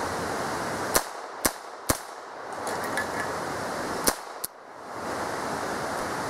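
Five sharp shots from a USFA ZiP .22 LR pistol: three in quick succession about a second in, then two more close together about four seconds in, over a steady background hiss.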